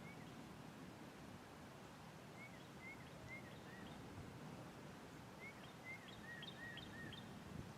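Faint outdoor background noise with a low rumble, over which a small bird gives short chirps: one near the start, four about half a second apart a couple of seconds in, then a quicker run of five or six near the end.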